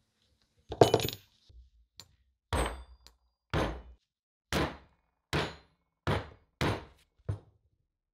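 Repeated hammer blows, about one a second. The first blow is the loudest and rings briefly.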